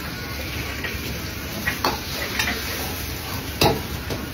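Steady frying sizzle in a pan, broken by a few sharp clinks of a utensil against cookware, the loudest about three and a half seconds in.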